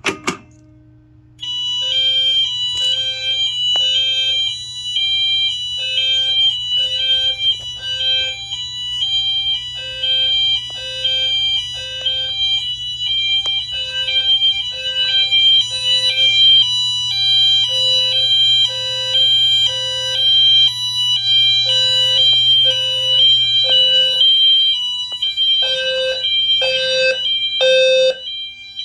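Wheelock MT multitone fire alarm horns sounding the hi-lo tone, two pitches alternating in quick succession. A sharp click comes just before the alarm starts, about a second in.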